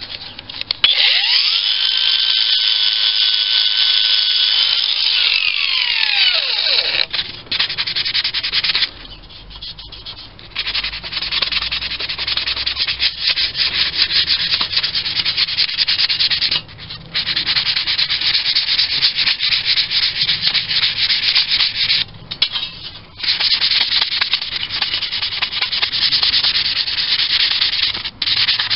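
Hand-scuffing a painted metal model-steam-engine baseplate with an abrasive pad to key the surface for primer: fast, continuous rubbing strokes with a few short pauses. Near the start a high whine holds steady for a few seconds, then falls in pitch and dies away about seven seconds in.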